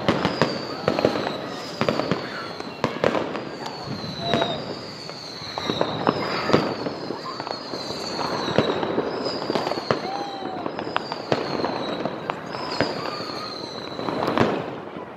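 Fireworks and firecrackers going off on all sides: a dense run of sharp bangs and crackles, with a high falling whistle repeating about every second and a half.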